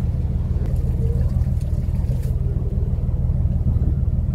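Fishing boat's engine running, a steady low rumble with a fine even throb.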